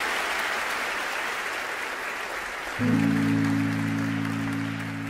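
Audience applauding, then about three seconds in a sustained low chord of several held notes comes in and holds steady while the applause dies down.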